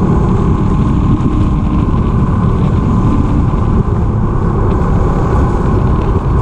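2021 Honda CB1000R's inline-four engine running steadily through an Akrapovic full exhaust system, a loud, even, deep rumble.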